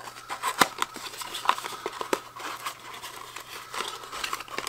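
Small cardboard box being opened by hand: its flaps scraping and snapping in an irregular run of light clicks and taps, with some rustling of the packaging inside.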